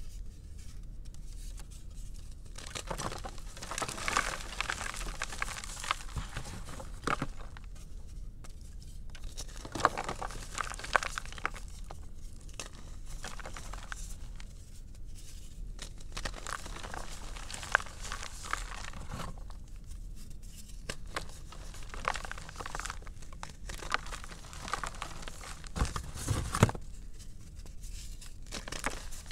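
Thin slabs of gym chalk crushed and crumbled by hand: dry, crunching breakage in bursts with short pauses between them and a few sharper snaps. The loudest crack comes near the end.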